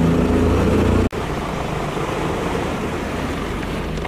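Outboard motor running with a steady hum. After a sudden cut about a second in, the boat is under way: engine noise mixed with a steady rush of wind and water.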